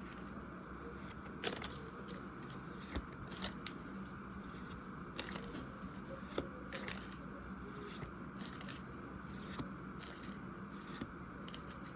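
Pokémon trading cards being handled and slid one behind another, giving scattered soft clicks and rustles over a faint steady hum.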